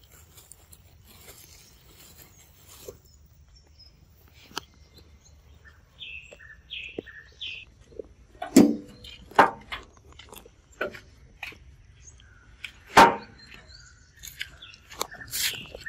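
Scattered close knocks and thumps from a macaque handling a fruit right by the microphone, the loudest about 8.5 and 13 seconds in. A few short bird chirps come about 6 to 7.5 seconds in.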